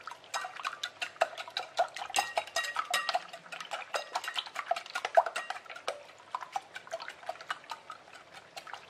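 Wire whisk beating six raw eggs in a glass bowl: the wires clink rapidly against the glass, several clicks a second.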